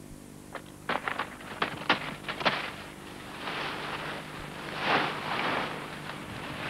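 Dry plant stalks and leaves snapping and rustling as a person works among them by hand: a quick run of sharp snaps, then a few longer rustles.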